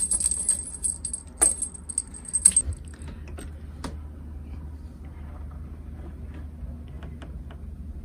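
Small metal bell on a feather cat-teaser toy jingling as the toy is shaken and batted, with several sharp knocks, stopping about three seconds in. After that only a low steady hum and a few faint ticks remain.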